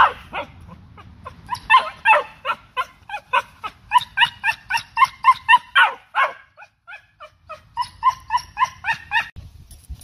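Cocker spaniel barking in rapid, high-pitched yips, about four a second, in two runs with a short pause about six seconds in.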